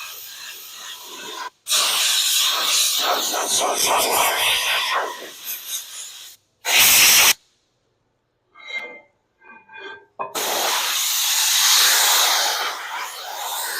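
Compressed air blowing from an air nozzle to clean a screen frame, in several loud hissing bursts that start and stop abruptly. A few brief high-pitched chirps come in a lull about midway.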